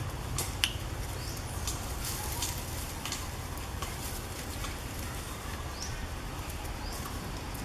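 Outdoor ambience in dry forest: scattered short clicks and rustles, like macaques shifting in dry leaves and twigs, with a few brief high rising chirps, over a steady low rumble.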